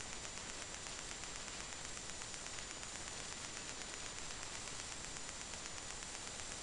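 Steady electronic hiss with a faint high-pitched whine: the recording's own background noise, with no other sound.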